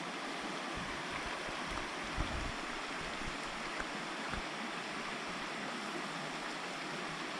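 Creek water running steadily over rocks, an even rushing, with a few brief low bumps, the strongest about two seconds in.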